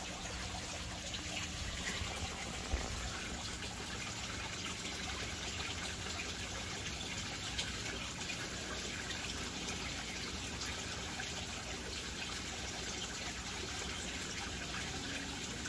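Steady trickle of running water in an aquaponics flood-and-drain grow bed's U-siphon setup.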